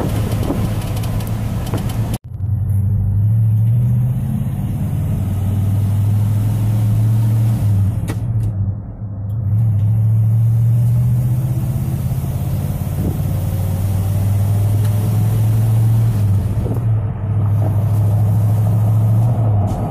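A 1969 Ford F100's 390 cubic-inch V8 running on the road, heard from inside the cab as a steady low drone. It cuts out for an instant about two seconds in and eases briefly around nine seconds in.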